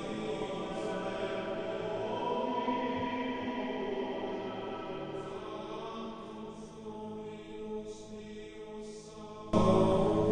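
Chanting voices holding long, sustained notes, like a choir, with a louder, fuller chord coming in suddenly near the end.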